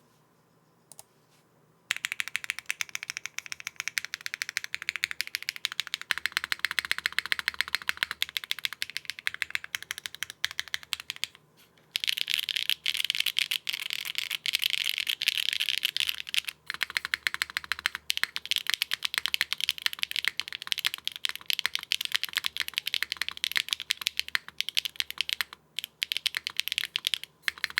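Fast typing on a plateless mechanical keyboard with HMX Sunset Gleam switches and Keykobo keycaps, a dense run of key clacks. It starts about two seconds in and pauses briefly about halfway through.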